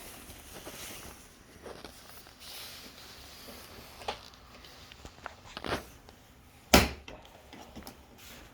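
Scattered clicks and knocks of plastic trim and clips being worked loose from a minivan's door panel, the loudest a sharp knock about two-thirds of the way through.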